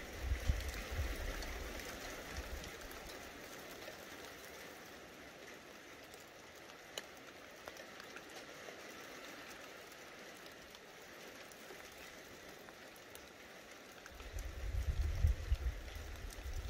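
Light rain falling: a steady, even hiss with scattered drop ticks. A low, choppy rumble sits under it about the first two seconds and returns in the last few seconds.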